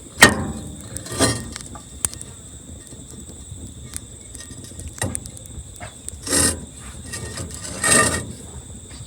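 Handling sounds: a sharp knock just after the start, a few lighter knocks, then two longer scraping rustles later on, over a faint steady high-pitched tone.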